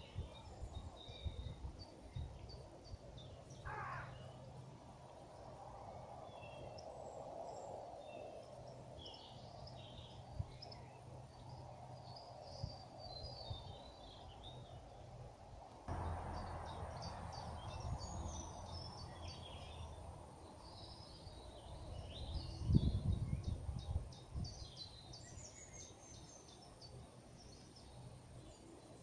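Small birds chirping and calling in short, scattered phrases over a steady low background rumble of outdoor noise. About two-thirds through, a brief low buffeting sound is louder than everything else.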